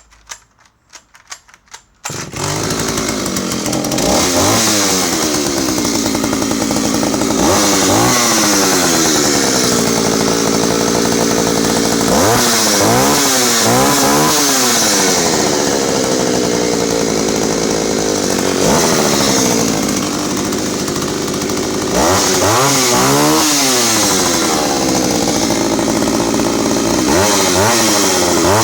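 Vintage Jonsered Raket 60 56cc two-stroke chainsaw being started, with a bit of choke and the throttle lock set. A few sharp clicks come first, then the engine catches about two seconds in. It runs at fast idle and is revved up and back down several times.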